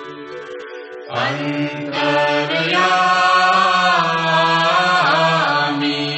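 Devotional chanting of an aarti: voices holding long sung notes. It breaks off briefly about a second in, then comes back fuller and louder through the middle.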